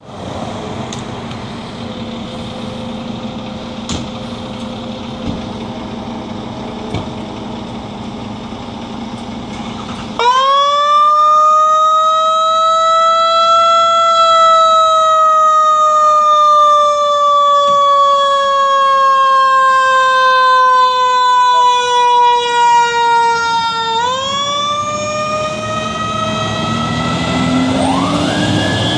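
Fire apparatus engines idle for about ten seconds, then a Federal Q mechanical siren comes on. It winds up fast to a loud howl, coasts slowly lower in pitch, then winds up again near the end as a second, sweeping siren joins in.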